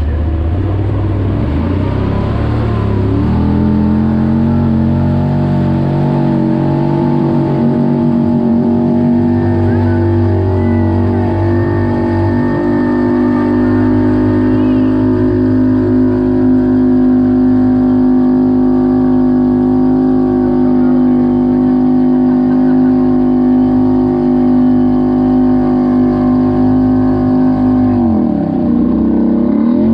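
Honda Talon's parallel-twin engine running under load while the side-by-side wades through deep lake water. The revs rise about three seconds in and hold steady, dip briefly near the end, then climb again.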